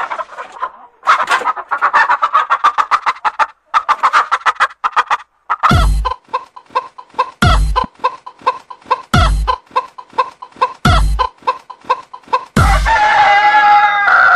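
Rapid chicken clucking over a music track with a low drum beat about every 1.7 seconds. Near the end a rooster crows in one long call that falls in pitch.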